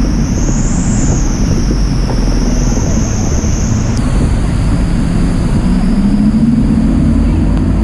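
Loud, steady rumble of a tour boat's engine with wind and rushing water.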